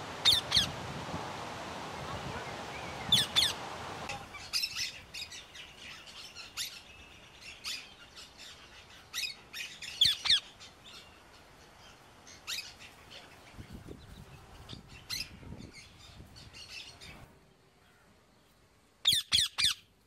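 Parrots squawking: short, sharp calls, mostly in quick pairs, with fainter chirps between them. A steady outdoor hiss lies under the first four seconds.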